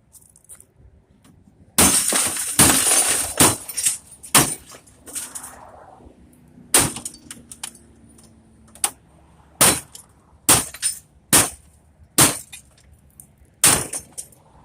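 Glass being smashed from an old CRT television while it is broken apart for scrap. A burst of shattering about two seconds in, then seven more single hard blows, roughly one every second or two.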